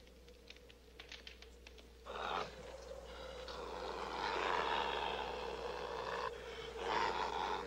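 Wolverine clawing at a log cabin's wall and window. A rasping scrape comes about two seconds in, then a long stretch of scratching with snarling noise, and another loud scrape near the end.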